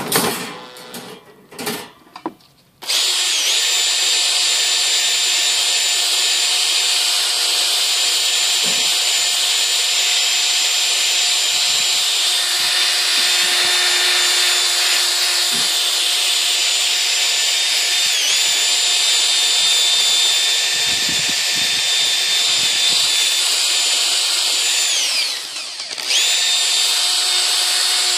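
Makita cordless drill spinning a wire brush against the wire bars of a dish rack, scrubbing dirt off the metal: a steady high motor whine with harsh scraping. It starts about three seconds in, after a few clatters of the rack. The whine sags briefly near the middle, and near the end it runs down and drops off before spinning back up.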